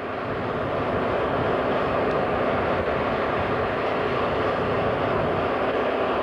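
Steady engine drone that fades in over the first second and then holds even.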